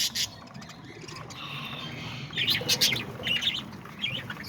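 A flock of small parrots, parakeets and lovebirds, chirping and squawking, with bursts of quick high chirps at the start, about two and a half seconds in and again near the end.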